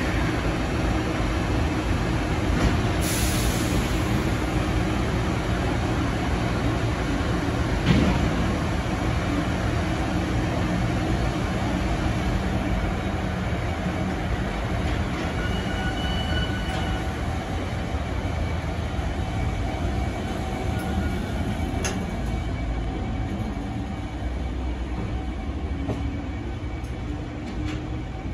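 JR Freight container train pulling out behind an EF210 electric locomotive: a steady rumble of container wagons rolling past. A brief high hiss comes about three seconds in, a single clank about eight seconds in, and a short high squeal about sixteen seconds in.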